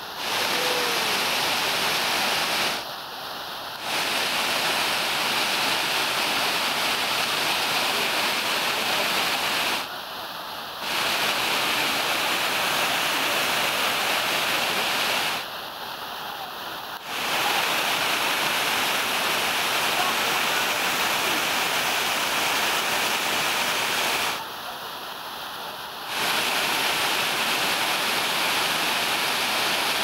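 Waterfall: a steady rush of water pouring over rock and splashing into the pool below. The level drops for a second or so four times.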